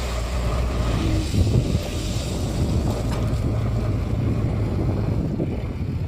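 Diesel engine of a JCB backhoe loader running steadily, with wind noise on the microphone.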